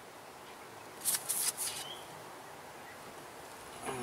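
A few brief metallic clicks and clinks from a socket wrench on the timing-belt tensioner pulley bolt, about a second in, against a quiet background. A faint short chirp follows just after.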